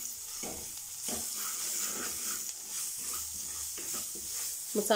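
Onions and ground spices sizzling in hot oil in a metal kadhai, stirred with a wooden spatula that scrapes against the pan a few times.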